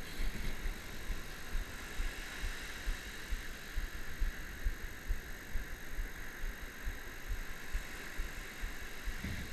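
Wind buffeting the camera microphone in irregular low thumps over the steady hiss of surf washing up the beach.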